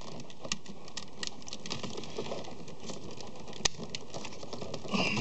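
Light plastic clicks and rattles as the truck's door switch panel and its wiring connectors are handled, with one sharper click about three and a half seconds in, over a steady background hiss.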